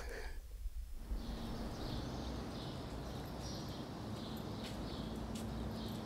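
Street background ambience: a steady low hum and noise, with small birds chirping repeatedly over it, starting about a second in.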